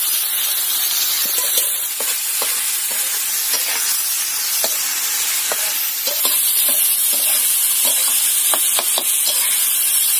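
Chopped wild mushroom sabzi frying in freshly added oil on a tawa: a steady sizzle with many small scattered clicks, growing a little louder about six seconds in.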